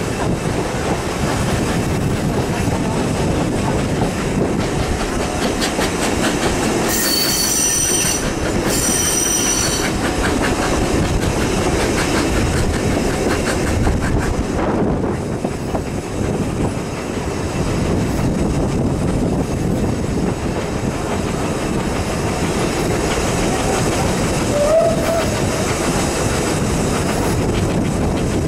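3 ft narrow-gauge steam train with a Beyer Peacock 2-4-0 tank engine running, a steady rumble with wheels clicking over the rail joints. About seven seconds in, the locomotive's whistle sounds twice, two blasts of about a second each.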